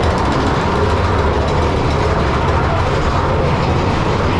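Big Thunder Mountain Railroad mine-train roller coaster climbing a chain lift in a tunnel: a steady, loud rumble of the train with a fast, continuous rattle of chain and wheels on the track.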